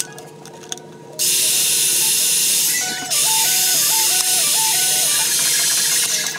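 Power pipe threading machine running with a loud, steady hiss that starts about a second in and dips briefly near the middle, with background music underneath.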